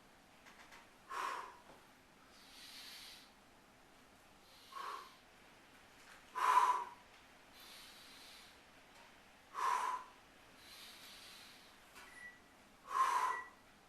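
A man breathing hard through a slow exercise: soft inhales alternating with five sharp, forceful exhales, one every two to three seconds.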